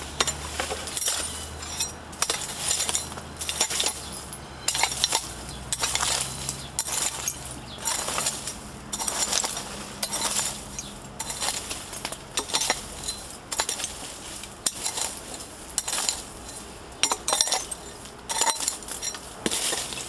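Shovel digging into rubble-strewn soil, its blade scraping and clinking against stones and buried glass and trash with each stroke, about once a second.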